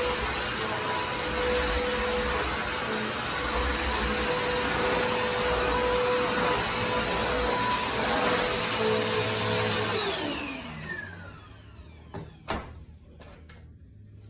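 Upright vacuum cleaner running steadily, then switched off about ten seconds in, its motor whine falling as it spins down. A couple of knocks follow near the end.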